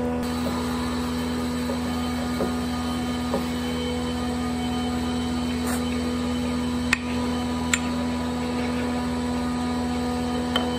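Steady electric motor hum, with a few sharp knocks of a carpenter's hand tools on a timber beam, the two loudest close together about seven seconds in.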